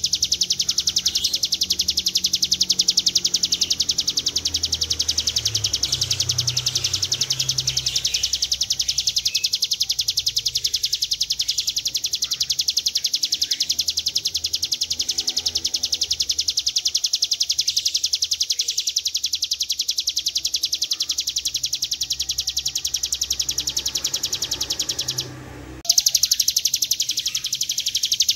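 Hill prinia (ciblek gunung) singing its long 'ngebren' song: one very fast, unbroken, high rattling trill. Near the end it cuts out for about half a second, then resumes.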